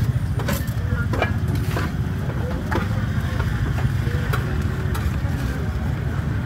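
Steady low motor rumble with scattered clinks and knocks and faint voices: street-market background noise.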